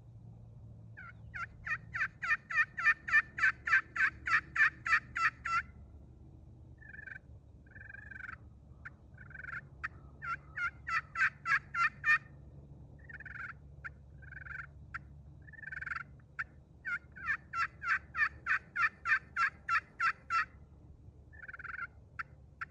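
Turkey pot call of Bocote wood, with a ceramic playing surface over a glass soundboard, played with a striker to imitate hen turkey yelps. There are three long runs of yelps at about four notes a second, with a few shorter, spaced notes between them.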